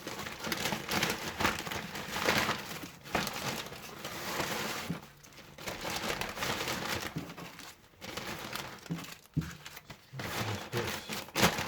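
Packaging crinkling and rustling in irregular handfuls as spare parts are handled and put back in a box.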